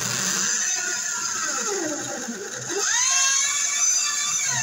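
Electric drill with a spade bit boring into a wooden board, starting abruptly, its whine sagging and rising again several times as it cuts.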